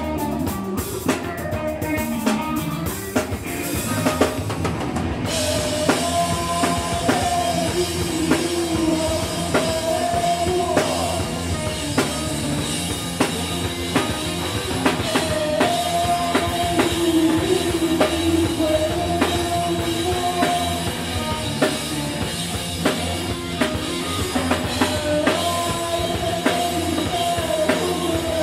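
Live rock trio playing: electric guitar, bass guitar and a drum kit keeping a steady beat, with a lead line wavering in pitch over it. The band sounds brighter and fuller from about five seconds in.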